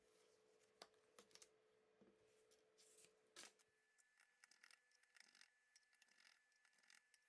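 Near silence, with a few very faint ticks.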